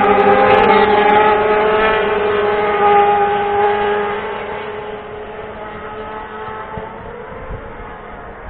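Engines of a pack of superbike racing motorcycles passing, then fading away after about four seconds as the bikes move off down the track.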